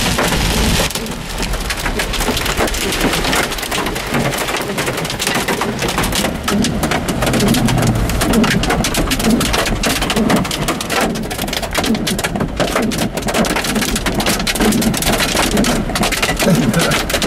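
Hail and torrential rain hitting a vehicle's roof and windows, heard from inside the cabin as a dense, continuous stream of hard clicks and knocks over the hiss of the downpour. The hailstones are around quarter size and larger.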